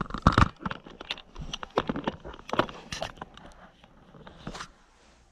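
Handling noise from a camera being adjusted and repositioned close to the microphone: irregular clicks, knocks and rustles, busiest in the first three seconds and tailing off near the end.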